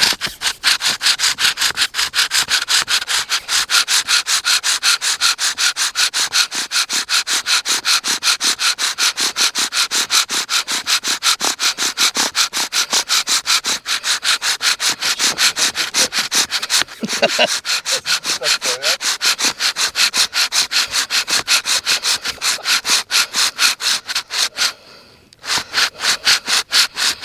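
Bow drill for friction fire: the wooden spindle rubs rapidly in the hearth board's notch as the bow is sawn back and forth, about four strokes a second. It stops briefly near the end and starts again.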